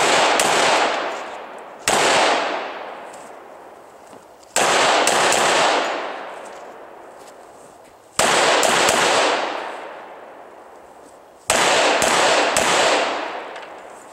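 Semi-automatic pistol firing in quick strings of two or three shots, about five strings spaced roughly three seconds apart. Each string rings out and fades over a couple of seconds.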